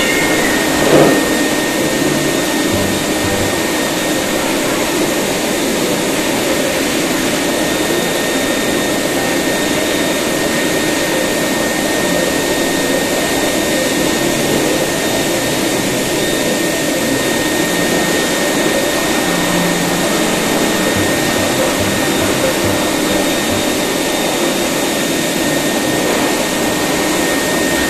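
Pet grooming dryer blowing air steadily through its hose nozzle: a loud, even rush with a thin high whine.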